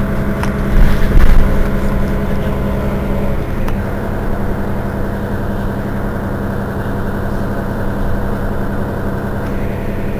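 Mercedes-Benz Citaro Facelift city bus engine idling steadily while the bus stands at a stop, a constant low hum with a brief louder low rumble about a second in.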